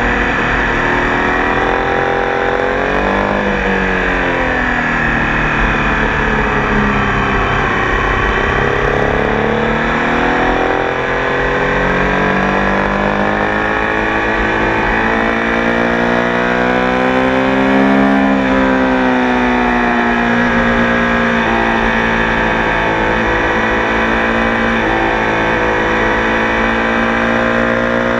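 Tiger Sport 800 motorcycle engine running continuously, its pitch sagging and climbing several times as the revs change, climbing to its highest about eighteen seconds in and then easing back off.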